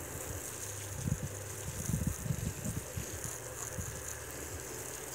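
Outdoor wind buffeting the microphone: irregular low rumbles, busiest between one and three seconds in, over a faint steady low hum.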